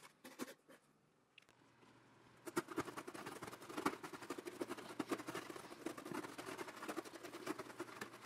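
Carbon steel knife blades sawing through thick twisted natural-fibre rope: rapid, crunchy, fibrous rasping and snapping strokes. They start about two and a half seconds in, after a short near-quiet gap.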